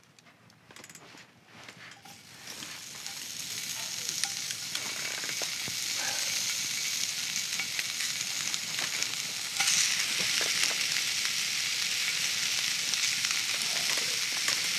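Sausage chunks sizzling in a hot cast iron skillet. The sizzle starts about two seconds in, builds over the next couple of seconds, then holds steady and jumps louder near ten seconds in.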